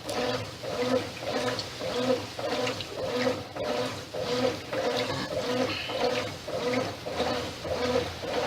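Brastemp 8 kg top-loading washing machine agitating its load in the wash cycle: water sloshing with a pulsing mechanical hum, about two strokes a second. The owner puts the machine's jet-engine-like noise down to a dried-out bearing that needs replacing.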